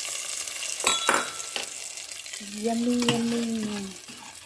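A hot oil tempering of garlic, dried red chillies and cumin sizzles as it meets a pot of cooked dal, the hiss fading away. A metal ladle stirring it in clinks against the pot a few times, and a voice hums briefly about halfway through.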